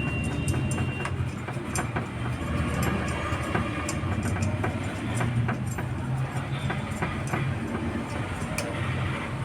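Irregular clicks and knocks of hand tools on the battery cable connections over a steady low hum.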